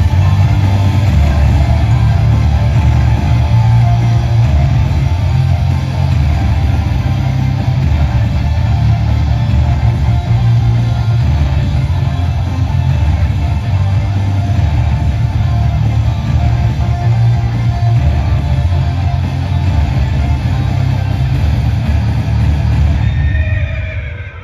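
Loud rock-style music with guitar and heavy bass, the soundtrack of the mechanical flying-horse lantern show, fading out near the end.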